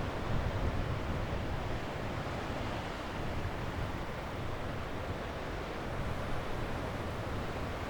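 Sea waves washing onto a beach, a steady rushing surf that swells and eases a little.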